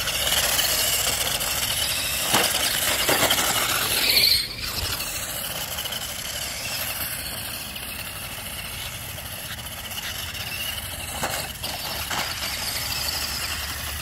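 Toy RC car's small electric motor and gears whining as it drives across concrete. The whine is louder for the first four seconds or so and then eases. A few sharp knocks are scattered through it.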